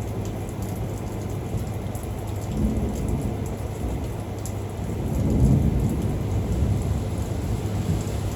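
Thunderstorm: steady rain falling, with a low rumble of thunder that swells to its loudest about five and a half seconds in.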